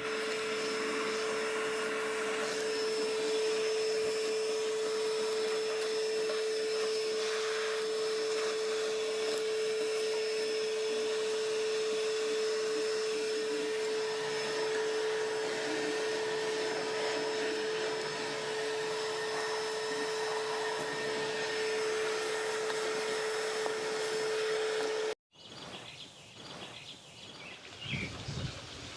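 A small electric motor running steadily, with a constant whine over an airy hiss. It stops abruptly near the end, leaving quieter outdoor background.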